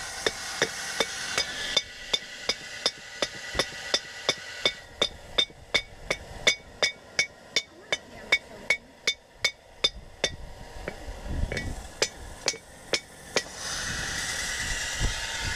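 Hand hammer striking hot steel on an anvil in steady blows, about three a second, each with a short metallic ring. The blows thin out and stop about thirteen seconds in. A hiss sits under the blows at the start and comes back near the end.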